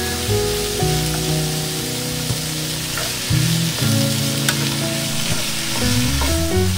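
Green beans and sausage sizzling in a hot frying pan as soy sauce is poured in, then stirred and tossed with a wooden spatula. Background music plays underneath.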